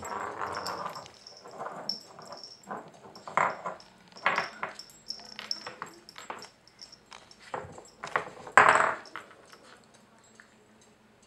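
Norwich terrier puppy nosing and pawing at a wooden treat puzzle: snuffling sniffs and wooden pieces scraping, in irregular bursts, the loudest about three-quarters of the way through.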